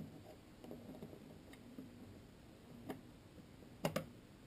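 Parts of a Hi-Capa airsoft pistol being handled and fitted back together: faint rustling with a sharp click about three seconds in and two quick clicks near four seconds.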